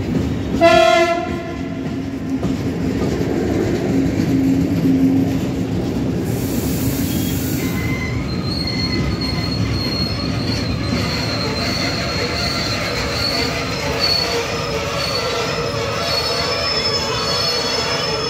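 Freight train of tank wagons running past with a steady rumble of wheels on rail. A short horn blast sounds about a second in, and from about eight seconds in the wheels squeal in high, thin, wavering tones.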